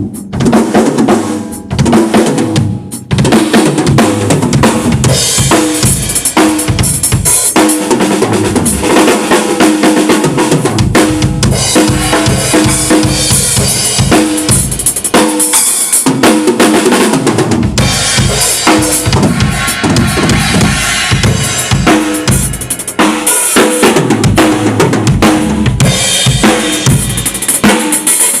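A drum kit played loudly in a continuous groove of kick and snare, with a short let-up about two seconds in, during a studio sound check.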